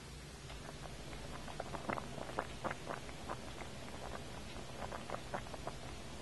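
Pot of cabbage, carrots and potatoes in broth coming up to a low simmer: small irregular bubbling pops, several a second.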